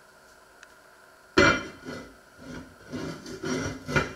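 Heavy enamelled cast-iron casserole lid being set onto its pot: a sharp clank about a second and a half in, then a run of smaller knocks and scrapes as the lid is shifted and settled on the rim.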